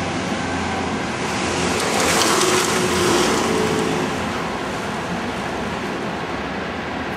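City street traffic noise, with a vehicle passing close by about two seconds in, swelling and then fading.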